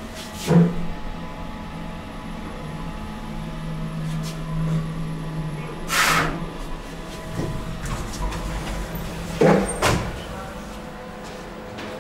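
KONE passenger elevator running with a steady low hum. It starts with a clunk about half a second in and stops with a couple of clunks near the end.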